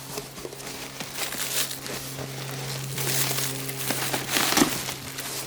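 Packaging rustling and crinkling as a boxed replacement headlamp assembly is handled and unpacked, louder and busier in the second half, over a steady low hum.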